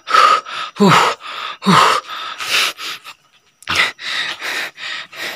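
A person's loud, breathy heaving cries and gasps in quick succession, several sliding down in pitch, with a brief pause about three seconds in.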